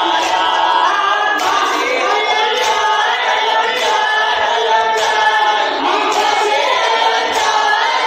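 A noha, a Shia mourning lament, chanted unaccompanied by a boy and men's voices together through a microphone, in a continuous rising and falling melody.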